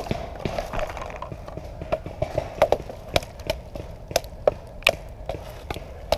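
Paintball markers firing: irregular sharp pops, a few every second, some much louder than others.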